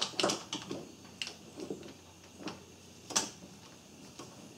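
Scattered light clicks and clinks of hand tools on metal as a socket is worked onto the exhaust camshaft sprocket bolt, the loudest a little after three seconds in.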